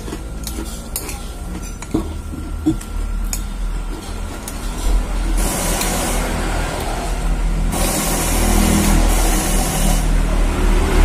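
Motor traffic passing close by: a low engine rumble throughout, with a louder rush of engine and tyre noise from about halfway through. A few clicks of a spoon come in the first three seconds.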